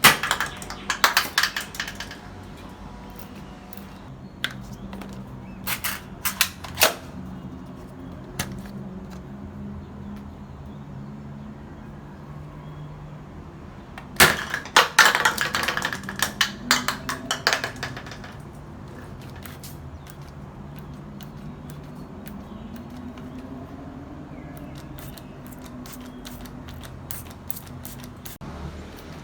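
Plastic toy gun clicking in rapid bursts of sharp snaps, the longest lasting a few seconds about halfway through, over a faint steady low hum.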